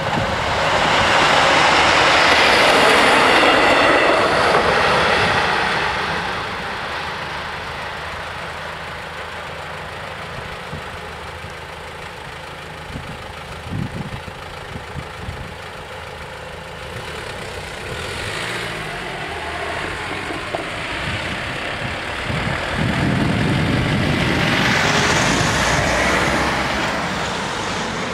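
Railway level crossing clearing after a train: a loud rushing noise fades over the first few seconds, a few short clunks come midway while the barrier booms rise, and road vehicles then drive over the crossing, loudest near the end.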